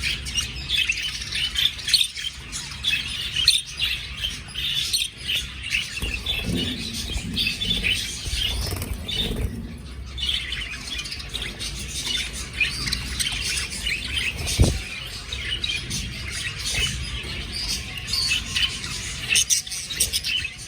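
Budgerigars chirping and chattering continuously, many short calls overlapping, with one sharp click about two-thirds of the way through.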